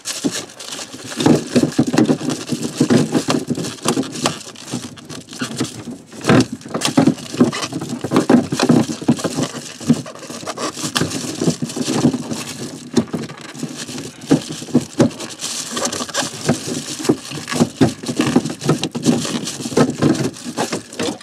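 Slip-joint pliers working the nut on a new RV shower drain fitting from underneath: a dense run of irregular clicks, scrapes and rattles.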